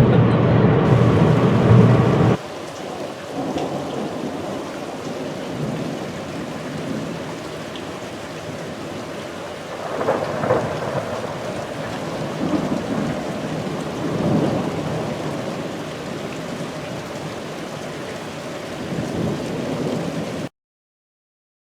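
Steady rain with thunder rumbling several times. It follows a louder, muffled sound in the first couple of seconds and cuts off abruptly shortly before the end.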